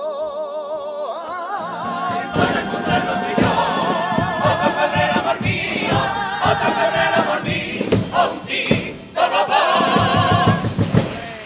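Carnival comparsa's male choir singing its chorus in harmony with strong vibrato, backed by Spanish guitars. Regular percussion beats come in about two seconds in. The singing dips briefly near the end of the middle part, returns, then fades out just before the close.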